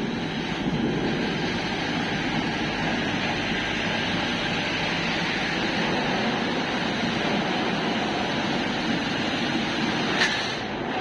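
Steady industrial machine noise from a running steel coil processing line: a continuous hiss and hum with no rhythm. A single short click sounds about ten seconds in.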